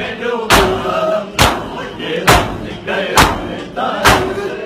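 Group of mourners beating their chests in unison (matam): five loud slaps about a second apart, with voices chanting between the strokes.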